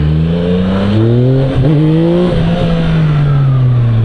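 Yamaha MT-09 SP's three-cylinder engine under hard acceleration, hard enough to lift the front wheel. The revs climb, with two quick upshifts about one and a half and two and a half seconds in, then slowly fall as the throttle eases.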